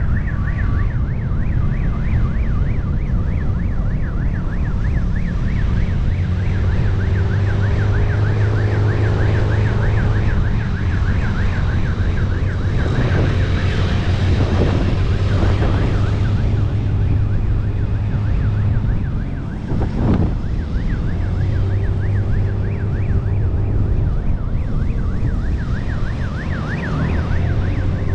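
A siren sounding a fast rising-and-falling yelp, over the steady drone of a motorcycle engine and wind rushing on the microphone.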